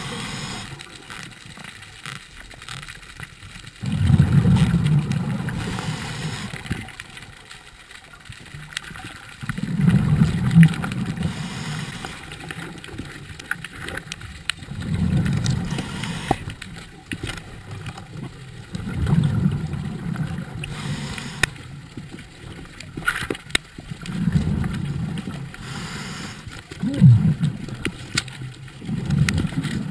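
Scuba diver's exhaled bubbles from the regulator, heard underwater as a low bubbling rumble about every five seconds in a steady breathing rhythm, with a few sharp clicks of gear in between.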